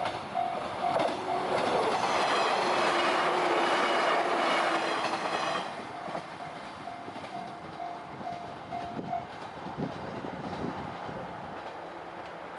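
Japanese railway level-crossing alarm sounding its repeated kan-kan tone as a train passes over the crossing, loudest from about two to six seconds in. The alarm stops about nine seconds in, once the train has cleared.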